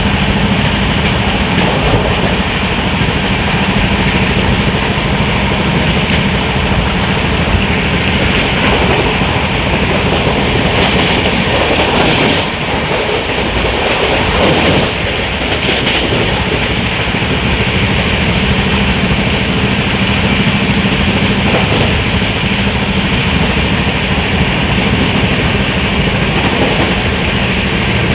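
Passenger express train running at speed, heard from the coach doorway: a steady, loud rumble of wheels on rail with rushing air. The noise dips briefly about halfway through, with a few sharp hissing clicks around the dip.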